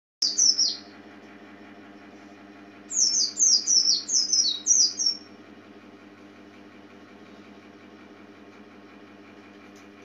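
Oriental white-eye (Zosterops palpebrosus) singing: a brief burst of quick, high, downward-sliding notes at the start, then about three seconds in a rapid run of eight or so falling notes lasting a couple of seconds. A steady low hum runs underneath.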